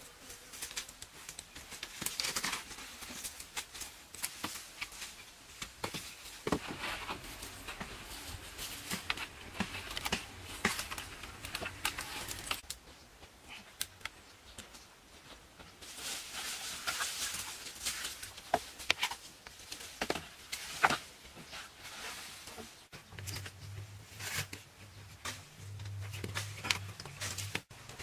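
Close-miked eating and food-handling sounds: irregular crackles, crinkling and tearing with sharp clicks, as of food packaging being handled and crunchy food being eaten. A low hum joins in for a few seconds near the end.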